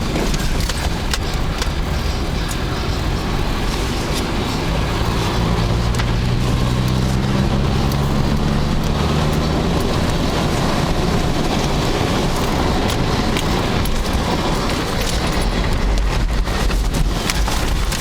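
Subaru car's engine running under load, with steady tyre and road noise as it spins on ice. The engine tone climbs a little about a quarter of the way in and fades about halfway through.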